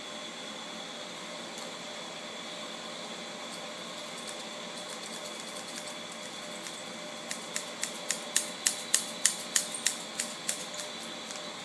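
Steady faint hiss, then a run of about a dozen sharp clicks or taps, about three a second, growing louder and then fading over some three seconds.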